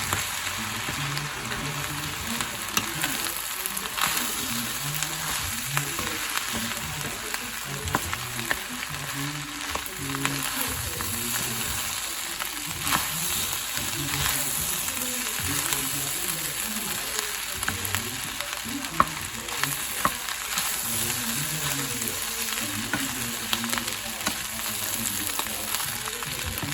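Fried rice sizzling steadily in a hot pan while being stirred, with scattered sharp clicks from the stirring.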